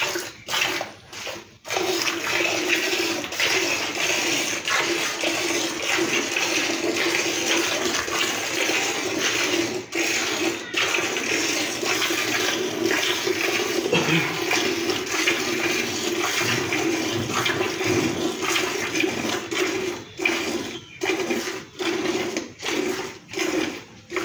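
Milk squirting from a cow's teats into a pail during fast hand milking, the streams hitting the milk already in the pail. The squirts run together into a steady hiss for most of the time, and near the end they separate into distinct spurts, about two a second.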